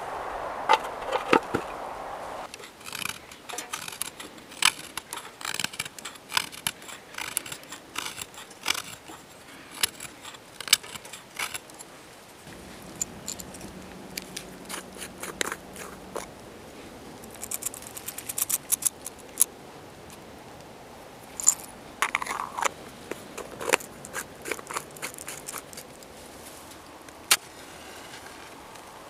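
Split kindling sticks and wood shavings being handled and knocked against a metal tin and the metal box of a homemade ammo-box wood stove. They make a long run of irregular sharp clicks and light wooden knocks, with a few louder knocks in among them.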